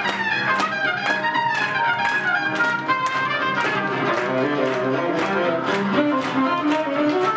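Swing jazz with horns playing over a steady, driving beat of about three strokes a second.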